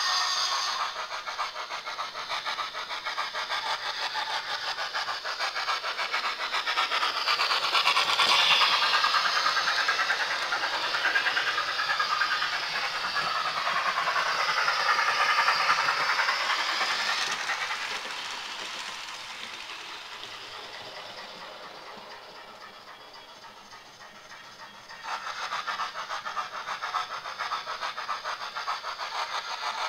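Steam locomotive sounds from a Hornby model's DCC sound decoder, played through its small on-board speaker: a rapid steady chuffing rhythm over hiss. It swells loudest in the middle, fades away to a low level, then cuts back in suddenly about 25 seconds in.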